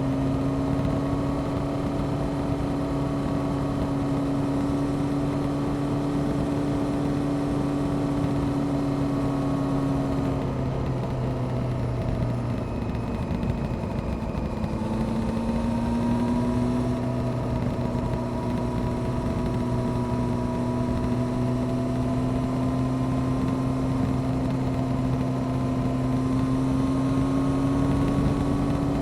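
Honda CBR600F Sport's inline-four engine running under way over wind rush. About ten seconds in the engine note drops, then it rises slowly and steadily through the rest as the bike gathers speed.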